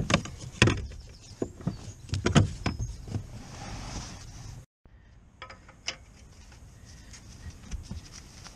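Sharp metallic clicks and knocks of hand tools and fittings being worked at a car's clutch pedal mounting, densest in the first few seconds. It cuts to silence for a moment about halfway, then a few fainter clicks of a spanner being handled follow.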